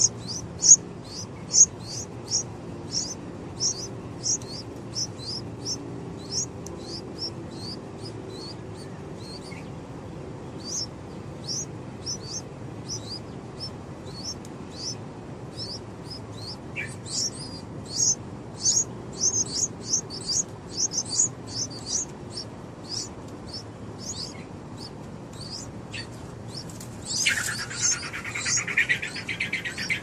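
Bulbul chick's thin, high chirps repeated quickly, several a second, the kind of calling nestlings make when begging for food. The chirps stop for about a second partway through, and near the end a louder, rougher rasping call joins them.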